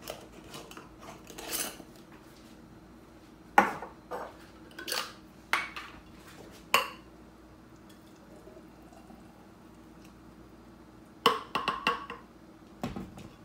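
Glass mason jar and blender jar being handled: a few separate sharp knocks and clinks of glass on glass and countertop a few seconds in, then a quiet stretch, then a quick run of clinks near the end as the smoothie is poured into the jar.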